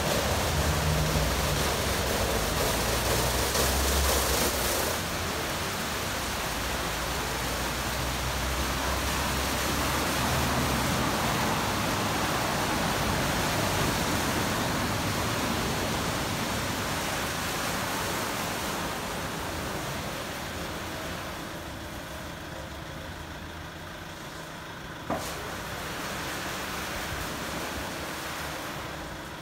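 Aquarama Stargate S4 rollover car wash at work: rotating brushes scrubbing and water spraying over a car, with a low motor hum. The rushing noise is loudest at first and dies down in the last third as the gantry moves off the car, with a single sharp click about 25 seconds in.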